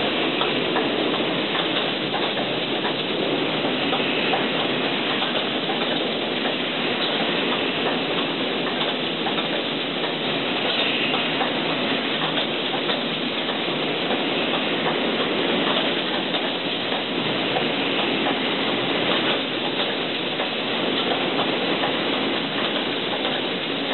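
Automatic spray-painting line for small metal parts running, a steady, even machine noise from its conveyor, pneumatic spray guns and booth.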